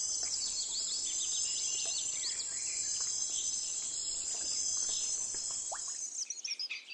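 Steady high insect trill, like crickets, with small birds chirping over it in short quick notes; it fades out about six seconds in.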